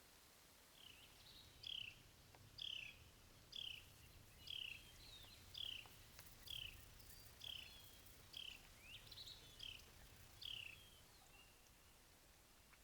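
A bird calling: a steady series of about a dozen short, down-slurred whistled notes, roughly one a second, that stops near the end.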